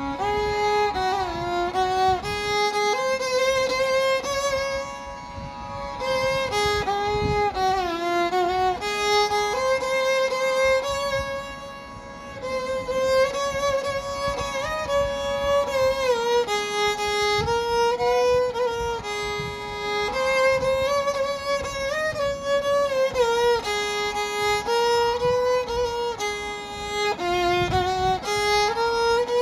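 Background music: a solo violin melody with sliding notes over a soft accompaniment.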